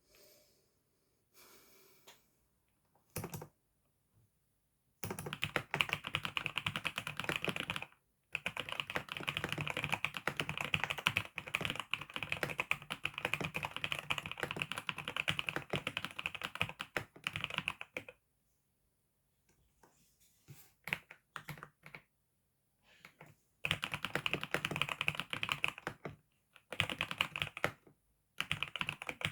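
Rapid typing on a newly bought computer keyboard: dense runs of key clicks in long bursts separated by pauses. The first few seconds hold only a few faint taps, and there is a lull in the middle before the typing resumes in shorter bursts.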